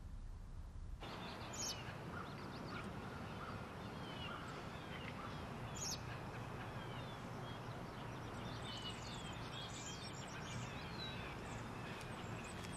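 Outdoor woodland ambience: a steady background hiss with many small birds chirping, short high calls scattered all through.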